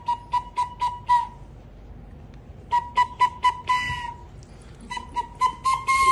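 A flute (bansuri) blown in quick short toots on one high note, in three runs of toots with gaps of about a second between them.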